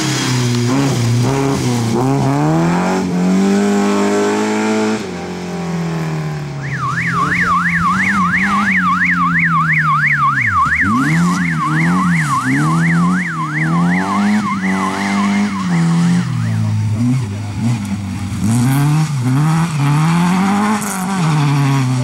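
Opel Manta rally car's engine revving hard and lifting off through a bend. Then a rally course car with roof beacons drives past with its siren yelping fast up and down for about ten seconds over its engine's revs. Near the end a car's engine revs again.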